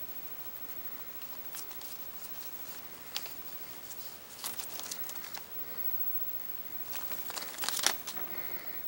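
Newspaper lining a rat cage crinkling and rustling in scattered bursts as the rats shift on it and a hand strokes them, loudest in a dense flurry near the end.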